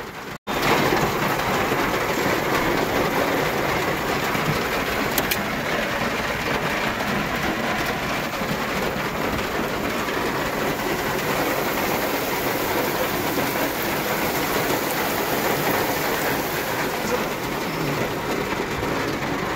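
Very heavy rain pouring steadily, an even, unbroken hiss of falling water.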